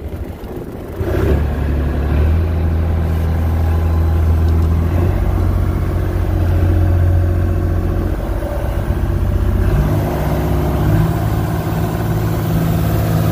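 Small fishing boat's engine throttled up about a second in, then running steadily under way, its pitch changing a couple of times.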